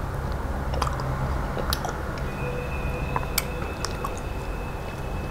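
Wet mouth sounds of a person biting and chewing soft, ripe mango flesh, with scattered small smacks and clicks over a steady low hum.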